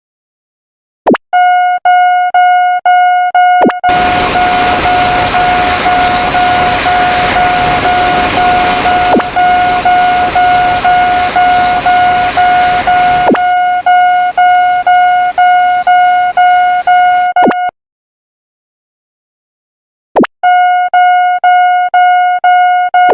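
Railroad crossing warning bell ringing in steady electronic dings, about two a second, with the noise of a passing train over it from about four seconds in. The bell cuts off suddenly about three-quarters of the way through, and after a couple of seconds of silence starts again near the end.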